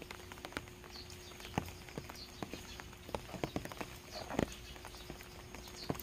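Rain dripping in irregular drops, each a sharp little knock or splash, some louder than others, with a bird chirping faintly now and then.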